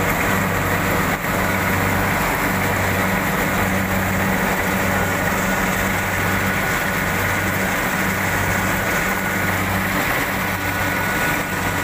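Rice combine harvester's engine running steadily while it cuts through standing rice: a low hum that swells and dips about once a second, with thin high whines from the machinery over it.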